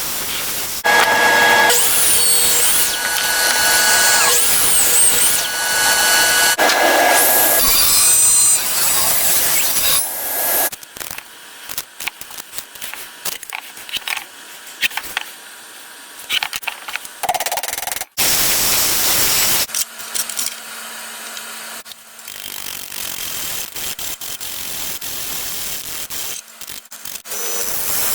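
Woodworking power tools cutting maple: a loud, steady machine run with whining tones for about the first ten seconds, then quieter, irregular scraping and clicking. Several abrupt changes between sections.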